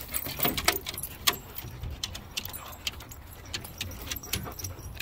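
A dog climbing metal playground steps: irregular light clicks and jingling from its claws on the steps and its studded collar, over a low rumble.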